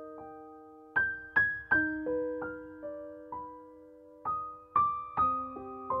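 Background music: a slow, gentle piano melody, single notes and chords struck every half second to a second and left to ring out.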